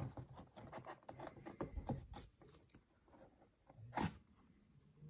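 Cardboard lighter box being handled and opened: faint rustling, crackling and small scrapes, then a single sharp tap about four seconds in.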